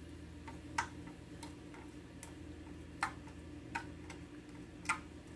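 Pink slime being pressed and worked by a child's fingers, making irregular sharp clicks and pops, the loudest about a second in, near the middle and near the end, over a steady low hum.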